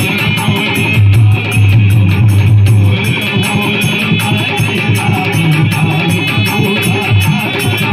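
Harmonium and dholak playing devotional folk music: the harmonium holds sustained reedy chords while the dholak keeps a fast, steady rhythm.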